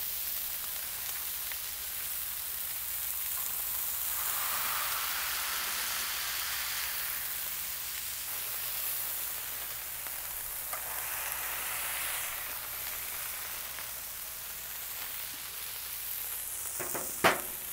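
Ground beef patties sizzling on a hot Blackstone steel griddle as they are smashed flat with a spatula; the sizzle swells twice as more meat is pressed down. A sharp click near the end.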